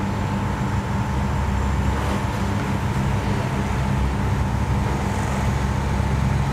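Steady low mechanical rumble and hum, with a thin steady whine above it.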